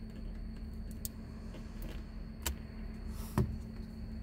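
A few sharp plastic clicks as a BlackVue dash cam is worked loose and unclipped from its windshield mount, ending in a louder click and knock near the end. A steady low hum underneath.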